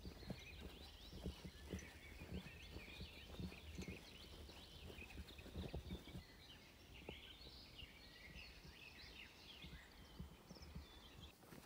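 Faint footsteps on a woodland path, with small birds chirping and twittering throughout.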